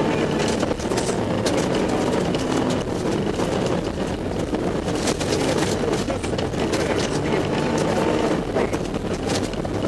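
Rally car engine running hard, heard from inside the cabin, with many sharp ticks and clatters of snow and grit striking the car on a snowy gravel road.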